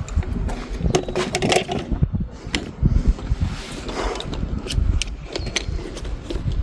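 Walking footsteps with irregular clinks, knocks and rattles of carried metal parts and tools.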